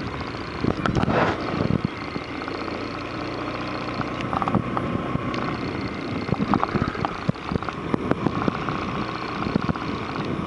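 Motorbike engine running steadily while riding along a road, with scattered knocks and rattles and a brief louder falling sound about a second in.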